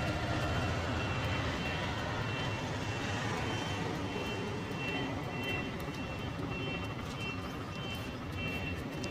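Steady street traffic noise, with a high electronic beeping repeating over it from about a second in.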